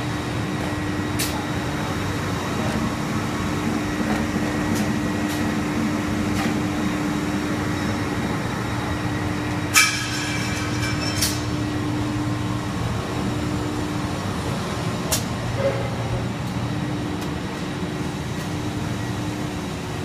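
ABS/HIPS plastic sheet extrusion line running, a steady machine hum with a constant tone. About ten seconds in there is a brief burst of sharp metallic clattering with ringing, and a few single clicks elsewhere.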